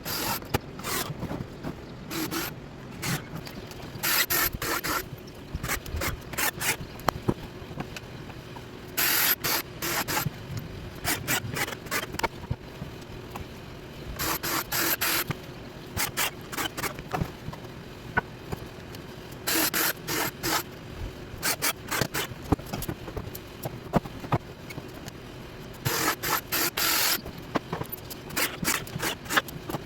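Work on wooden firework racks: rasping, hissing strokes of about a second each, coming every few seconds, with short clicks and taps between them.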